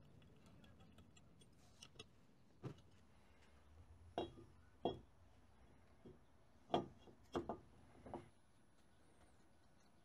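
A handful of separate sharp metal knocks and clunks, the loudest about two thirds of the way in, as a cast aluminium engine case is handled and set down onto an aluminium fixture subplate on a milling machine table.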